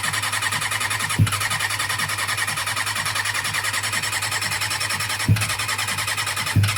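Electronic background music with a quick steady beat and a dense high layer, broken by a few louder thumps.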